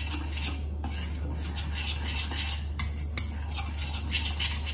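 A metal utensil stirring and scraping a thick yogurt and flour batter in a stainless steel bowl, clinking against the bowl's sides, with a couple of sharper clicks about three seconds in.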